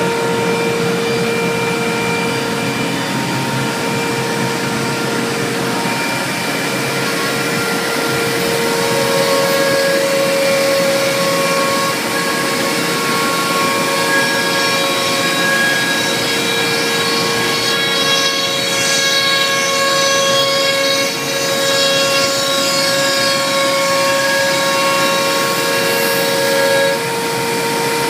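CNC router spindle running as the machine cuts kitchen cabinet components, with its dust extraction going: a steady whine made of several held tones, with a short stretch of sweeping changes in pitch about two-thirds of the way through.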